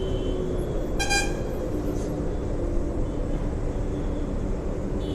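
Road traffic noise with a steady low rumble, and a short vehicle horn toot about a second in.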